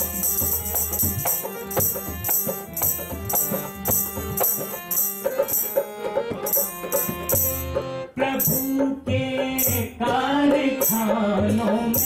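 Instrumental interlude of a Hindi devotional song (bhajan), with jingling percussion keeping a steady beat of about two strokes a second. A wavering melodic line comes in about eight seconds in.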